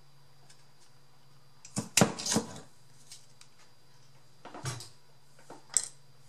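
Short clicks and clatters of craft tools and paper pieces being handled on a work table, in three brief clusters: a louder one about two seconds in, then two smaller ones near the end.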